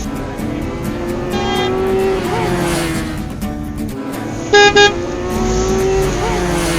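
Cartoon car horn sound effect: a fainter honk about a second and a half in, then a loud double beep-beep a little over four and a half seconds in, over upbeat background music.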